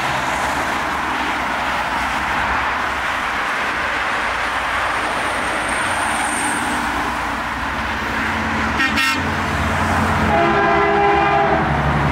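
Steady roar of heavy highway traffic, trucks passing. A brief high toot about nine seconds in, then a truck's air horn sounds for about a second near the end as a deeper engine rumble swells.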